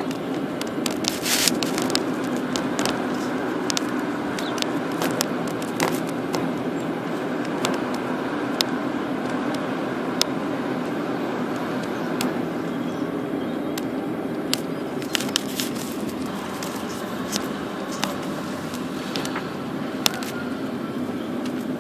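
Car driving, heard from inside the cabin: steady engine and road noise with a low hum, broken by frequent short clicks and rattles.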